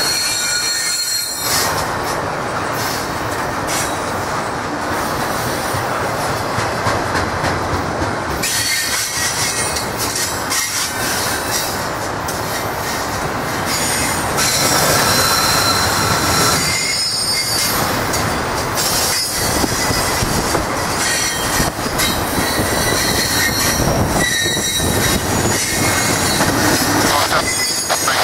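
Norfolk Southern freight train rolling past, a loud steady rumble of steel wheels on rail, with high-pitched wheel squeal coming and going.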